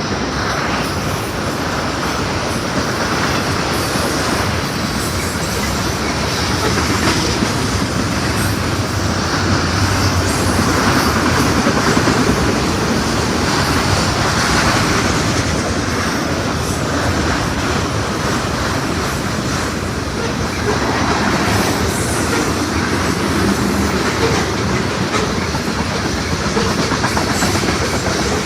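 A train's cars rolling past on the rails, giving a loud, steady rush of wheel noise.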